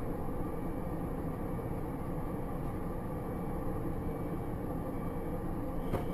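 Steady engine and tyre-on-road noise inside a moving car, picked up by a dashboard camera's microphone, with a faint click near the end.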